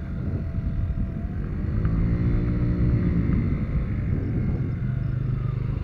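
Mondial 50 Revival scooter being ridden, its small engine running under heavy wind rumble on the microphone. About two seconds in, the engine's pitch swells up and falls back, and it steadies near the end.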